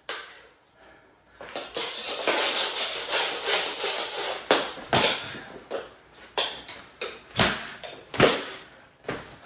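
Mini hockey sticks scraping and clacking on a hard floor during a game of knee hockey: a couple of seconds of busy scraping, then a string of sharp clacks about once a second.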